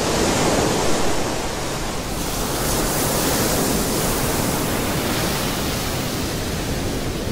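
Ocean surf washing up a sandy beach: a steady rush of breaking waves and foam running over the sand.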